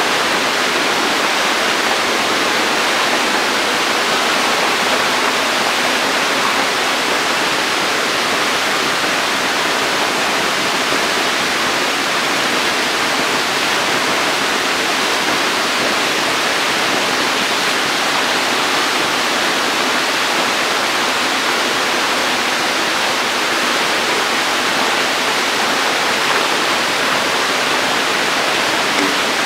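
Steady rushing, splashing water noise in a shallow tank crowded with hybrid magur catfish fry, an even hiss that does not let up.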